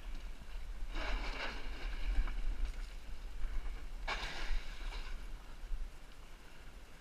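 A Snark sailing dinghy being pushed off the shore into the water: two short rushes of hull-and-water noise, about a second in and about four seconds in, over a low rumble of wind on the microphone.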